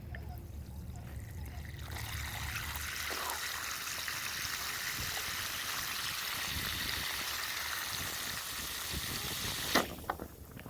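Water running in a steady stream into a gallon jug to fill it. The stream starts about two seconds in and stops abruptly near the end with a short knock.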